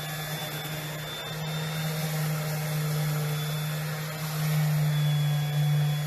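Electric sander running against wood: a steady motor hum with a grinding hiss, swelling louder about four and a half seconds in.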